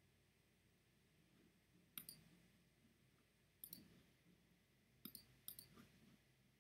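A handful of sharp computer pointer clicks, several in quick double pairs, starting about two seconds in, over faint room tone. They come as links in a web browser are clicked and a right-click menu is opened.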